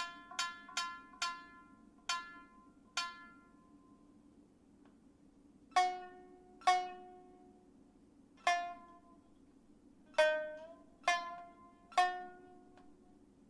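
Background music: sparse single notes plucked on a string instrument, each ringing and fading, in a quick run at the start, then a pause, then slower notes, one of them bent in pitch about ten seconds in, over a faint low hum.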